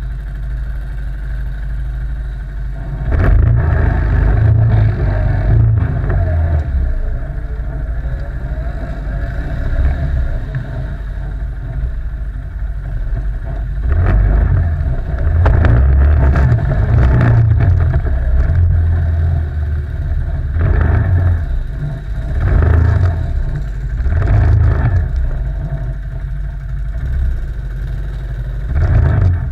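ATV quad engine running, opened up in repeated bursts of throttle: a long surge a few seconds in, a longer one around the middle, then several shorter ones towards the end, with lower steady running between.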